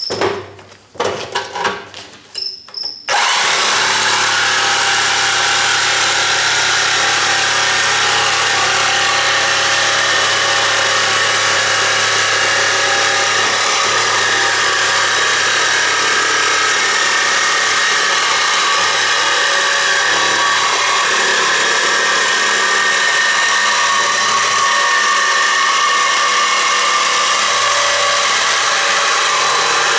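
Black & Decker reciprocating saw with a bimetal blade cutting through the steel wall of an air-compressor tank. It makes a few short stop-start bursts in the first three seconds as the blade gets started, then runs steadily through the cut.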